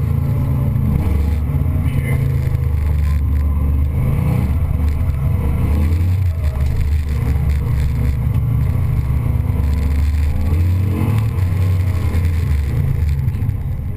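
A 355 cubic-inch small-block Chevy V8 running loud and low, its revs rising and falling.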